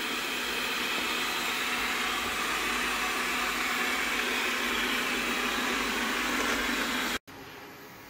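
Xiaomi Mi Robot Vacuum-Mop Pro robot vacuum running as it sets off from its dock on a cleaning run: a steady, even rushing hiss that stops abruptly about seven seconds in.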